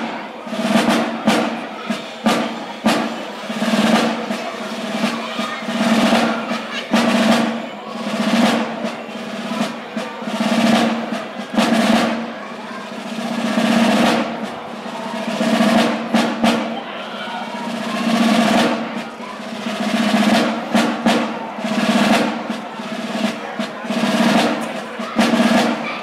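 Basel drums, the rope-tensioned side drums, playing the dance march: rolls and strokes in a steady rhythm that swells about every two seconds.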